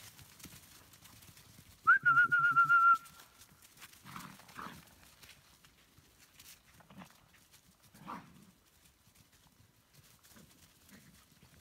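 Dogs at play vocalizing: one loud, high whine with a wavering pitch lasting about a second, starting about two seconds in, then a few short, fainter yips around four and eight seconds.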